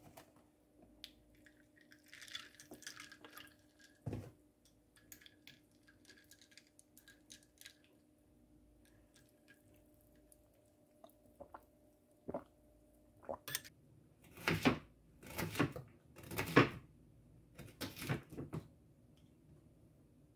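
Ice cubes clinking lightly against a ceramic cup and a metal straw as oat milk is poured over iced coffee and stirred. In the second half, a knife chops on a wooden cutting board, making about eight louder knocks.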